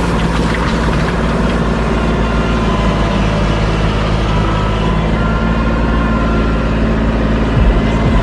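A large engine running steadily at an even, low idle.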